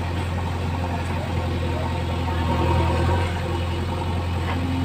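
JCB 3DX backhoe loader's diesel engine running steadily while the backhoe digs, swelling briefly a little past halfway through.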